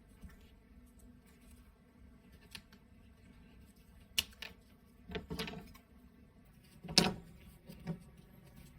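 Bench handling noises: a few scattered clicks and taps of small parts and a hand tool, with a short cluster about five seconds in and the loudest knock about seven seconds in.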